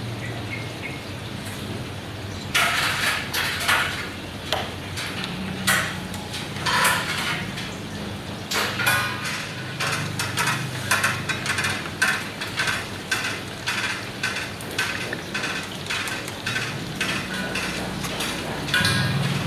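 Paintbrush tapping and clinking against a small palette dish, with brush strokes, in irregular runs of light knocks over a low steady hum.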